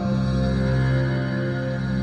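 Ambient synthesizer drone from a Korg Volca FM fed through a Tapographic Delay: layered sustained tones, with a new low note coming in at the start.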